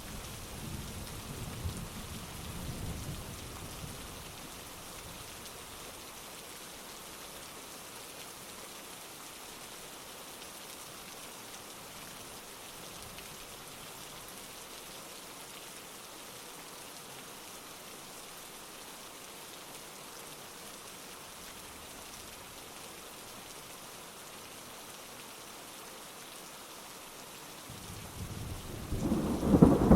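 Heavy rain falling steadily as an even hiss. The low rumble of thunder fades out in the first few seconds, and a loud peal of thunder builds near the end.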